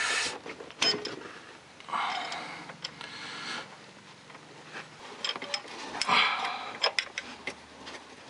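Scattered light metal clicks and scraping as a brake cable clevis and pin are worked by hand onto their bracket at a golf cart's rear axle, with a few soft rubbing noises between.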